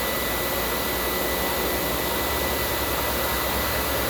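Motor-driven wire brush wheel running steadily at speed, a constant whirring noise with a faint steady whine.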